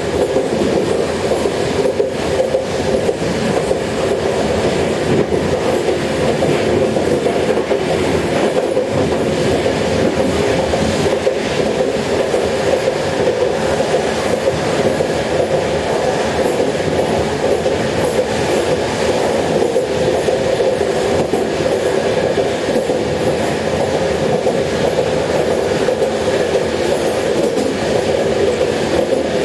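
Inside a train carriage moving fast: the steady running noise of wheels on rails, with a constant hum and faint clicking over the track.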